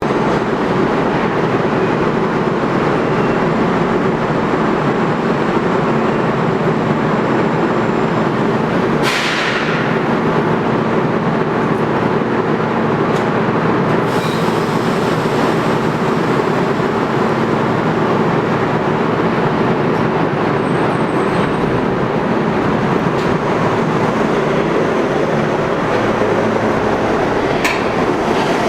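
Budd R32 New York subway train running with a steady loud noise and a constant low hum, with a short hiss falling in pitch about nine seconds in.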